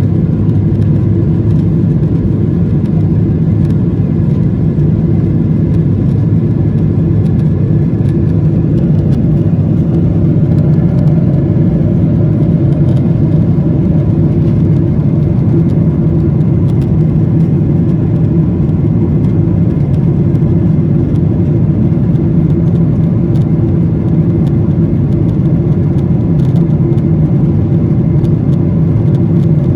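Aeroplane engine noise: a loud, steady drone with a few constant hum tones that holds without change throughout.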